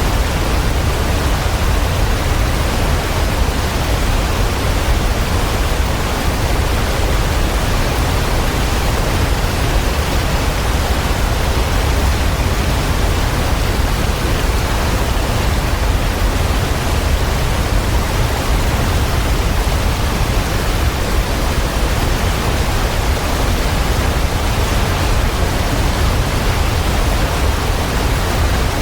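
Waterfall: water pouring in a steady, deep rush that never lets up.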